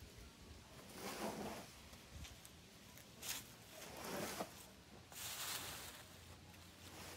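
Movement sounds of a boulderer and his spotter on a traverse: four or five short hissing swishes, a second or two apart.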